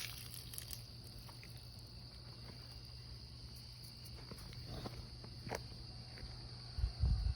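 Steady high-pitched insect trilling, likely crickets, with scattered soft footsteps, and a few low thumps near the end.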